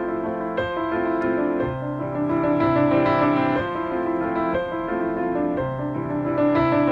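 Background piano music, with sustained notes and chords changing about once a second.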